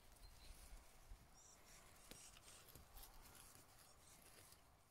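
Near silence, with faint rustling of leaves and a few small clicks as a hand handles a raspberry plant, and a few faint high chirps about a second and a half in.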